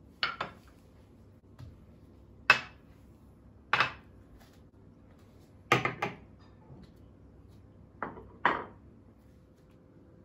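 Dishes and cutlery clinking: a handful of separate sharp clatters, some in quick pairs, spread out over several seconds.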